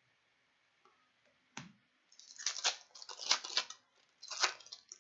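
Hockey trading cards being handled between reveals: a single click, then three short bursts of papery rustling and sliding as the cards are shuffled through.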